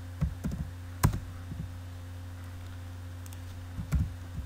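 Keystrokes on a computer keyboard: a few scattered taps in two short runs with a pause between, the loudest about a second in. A steady low hum runs underneath.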